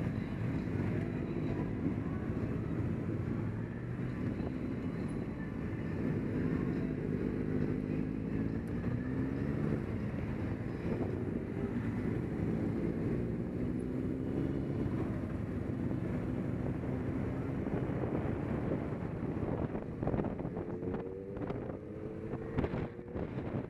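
Cruiser motorcycle engine running under way, heard from the rider's seat, its note rising and falling with the throttle. Wind rushes over the microphone, buffeting harder near the end.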